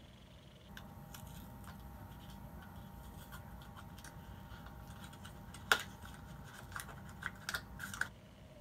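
Small plastic makeup packaging being handled and unwrapped by hand: light crinkles and clicks, with one sharp click about two-thirds of the way through and a few more clicks near the end.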